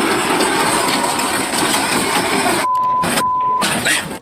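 Steady, loud machinery noise on a construction site, then two short electronic beeps of one pitch, each under half a second, with all other sound dropping out around them.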